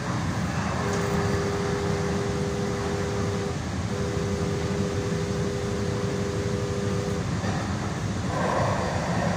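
DART light-rail train running, heard from inside the passenger car: a steady rumble of the wheels on the track. The train's horn sounds two long steady blasts, starting about a second in and ending about seven seconds in, as the train nears a street crossing.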